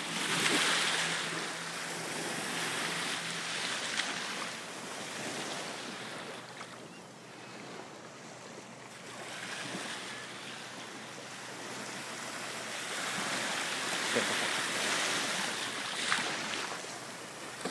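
Small waves on a calm sea washing and lapping, swelling louder just after the start and again near the end, with a few faint splashes.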